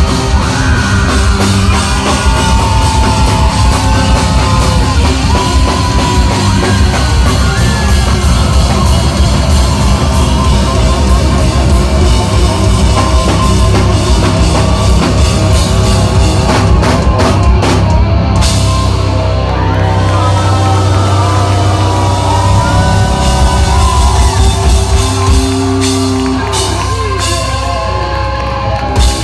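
Live rock band playing loud, with electric guitars and bass over a drum kit.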